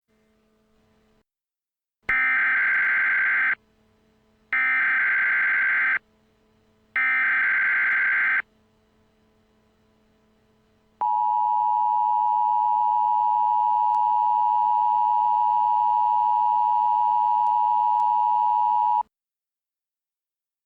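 Emergency Alert System tones: three bursts of SAME header data, each about a second and a half long, a second apart. A few seconds later comes the steady two-tone EAS attention signal, held for about eight seconds before it cuts off.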